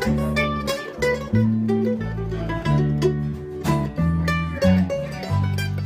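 F-style mandolin picking a quick run of single-note melody as a solo, with lower sustained backing notes from other acoustic instruments underneath.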